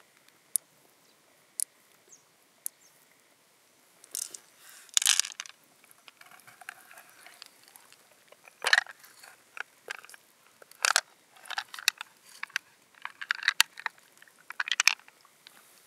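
Fingers squeezing pearls out of a freshwater mussel's soft flesh: irregular wet squelching and crunching, after a few sharp clicks of pearls set down on the shell in the first seconds.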